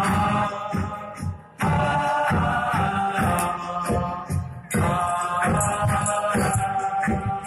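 Voices singing a devotional chant over a sustained harmonium, with tabla keeping a beat underneath; the music drops out briefly about a second and a half in, then comes back in.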